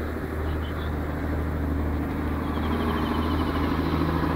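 Steady low drone of a motor vehicle running, with a quick run of high, slightly falling chirps about two and a half seconds in.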